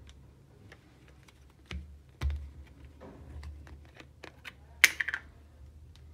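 Plastic bottle and phone case handled on a tiled counter: light clicks, two dull knocks about two seconds in, then a sharp plastic snap with a few quick clicks about five seconds in as the cap comes off the plastic sauce bottle.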